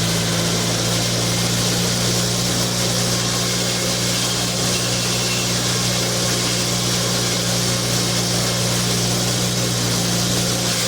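Engine of a mini skid steer running steadily at a constant speed, a loud, even hum.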